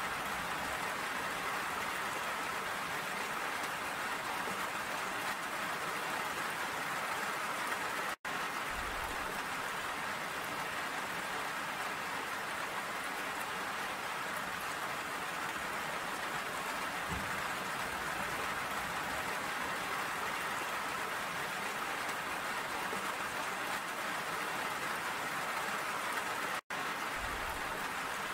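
Steady rain falling, an even hiss of drops. The sound cuts out for an instant twice, about eight seconds in and near the end.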